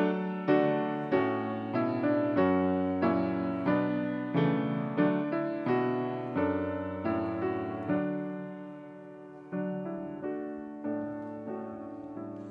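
Piano playing a slow hymn with no singing, a note or chord struck about every half-second. The notes space out and soften in the second half as the piece winds down.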